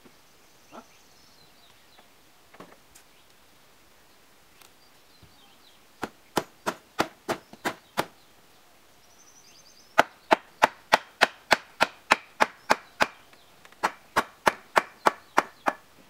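Hammer blows on a wooden roof rafter, in three runs of sharp, evenly spaced strikes at about three a second: the first begins about six seconds in, and the longest, about eleven blows, begins about ten seconds in.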